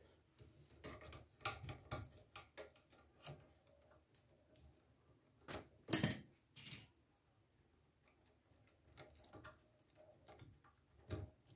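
Scattered small clicks and taps of hands and tools working on a circuit board and its plastic fittings inside a stereo receiver's chassis, with a louder knock about six seconds in.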